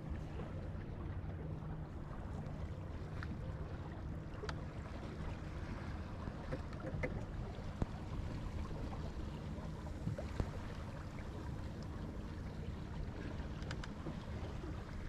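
Water washing steadily along the wooden hull of a small lug-rigged Venetian sailing boat under way, with wind on the microphone and a few faint ticks.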